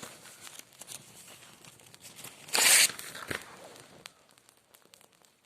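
Dry brushwood being handled for a campfire: one short, loud rustling tearing noise about two and a half seconds in, with a few light ticks and a sharp snap just after it.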